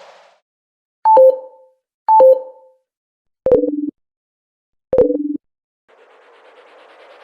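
Mobile phone low-battery warning tone: four short electronic beeps, each stepping down from a higher note to a lower one. The first two beeps come about a second apart and are pitched higher. The last two are lower and spaced about a second and a half apart.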